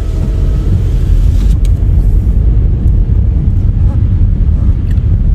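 Steady low rumble of a car driving along a narrow road, heard from inside the car: road and engine noise with a loud, churning low end.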